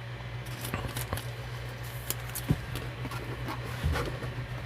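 A foil trading-card pack being torn open and the cards handled: scattered light crinkles and clicks over a steady low hum.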